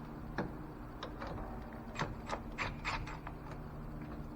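Scattered clicks and light knocks of hand work in a car's engine bay, a few a second at an uneven pace, as a tube is worked loose from its rubber grommet at the intake. A faint steady hum sits underneath.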